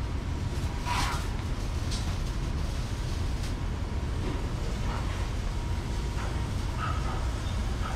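Steady low rumble of welding-shop background noise, with a few faint knocks.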